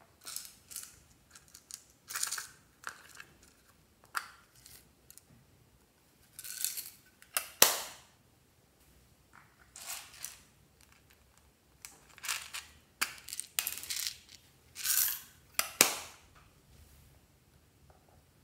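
Small plastic containers of glitter flakes and confetti sprinkles being opened, shaken and tapped out over glass trays: a string of clicks, rattles and short sprinkling hisses, with two sharp knocks standing out, one midway and one near the end.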